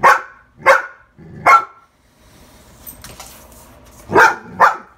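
Young dog barking in short, sharp barks, three in quick succession, then after a pause two more near the end. The barks are wary, alarmed barking at a dry leaf on the floor that the dog is scared of.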